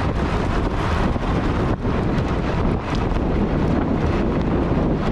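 Jeep Patriot driving on a gravel road, heard from a microphone mounted outside by the front wheel: wind buffeting the microphone over the rumble of tyres on gravel, with small stones clicking.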